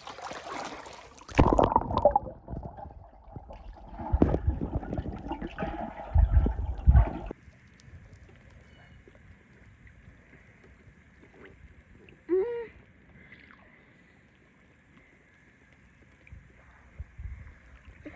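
Water splashing and sloshing in a swimming pool in loud, irregular bursts, which stop abruptly about seven seconds in. After that only a faint steady hiss remains, broken once, near the middle, by a short high vocal sound.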